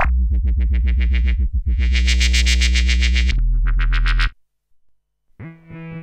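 Arturia MatrixBrute analog synthesizer playing a heavy, distorted bass patch with a fast pulsing rhythm, its tone growing brighter about two seconds in. The patch cuts off about four seconds in, and after a moment of silence a new, softer patch begins with held notes near the end.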